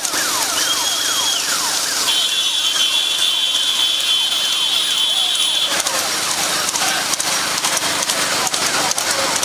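Noisy rekla horse-cart race commotion, with many repeated falling cries or calls. A shrill, steady high whistle-like tone sounds from about two seconds in until just before the six-second mark.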